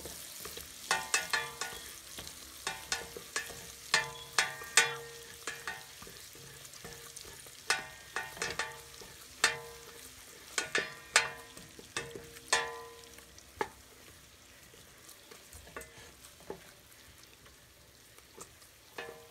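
Butter melting and sizzling in a stainless steel pot while it is stirred, with a high hiss throughout. The stirring spoon knocks against the pot many times, each knock leaving a short metallic ring. The knocks come less often near the end.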